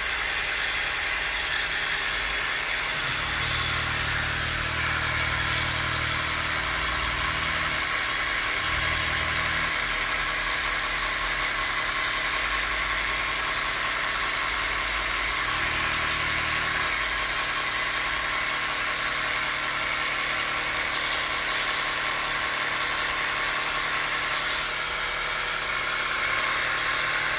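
Multilaser 12 V portable mini air compressor running steadily, its small motor and pump whirring at an even pitch as it pumps air into a car tyre that is well below pressure.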